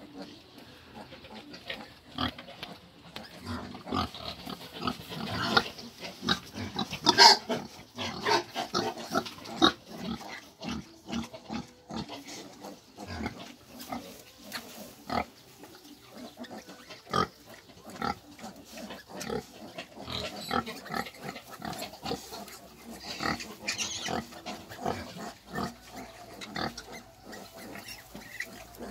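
A sow and her two-day-old piglets calling: many short squeals and grunts, loudest about seven seconds in.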